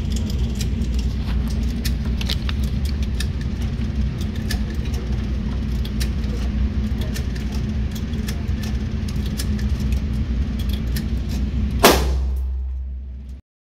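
Steady low rumble of range background noise with faint scattered clicks. Near the end a single sharp pistol shot rings out with a short echoing tail, then the sound cuts off abruptly.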